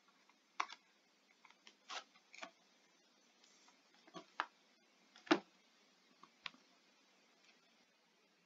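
Faint, scattered light clicks and taps of a stylus on a pen tablet, writing on a slide, about seven at uneven spacing, the loudest about five seconds in.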